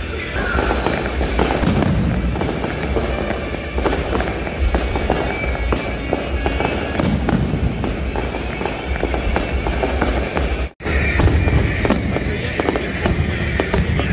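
Fireworks display bursting overhead: a continuous run of bangs and crackling over a low rumble, with a brief dropout about three-quarters of the way through.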